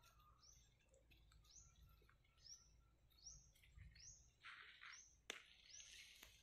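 A bird calling faintly over and over, a short upward-sweeping chirp repeated a little faster than once a second, with one sharp click about five seconds in.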